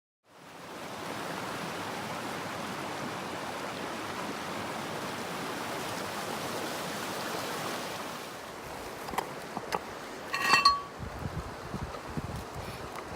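River water rushing steadily, fading in at the start. About eight seconds in the rushing eases a little, a few light clicks and one short high-pitched tone come through, and low wind rumble on the microphone follows.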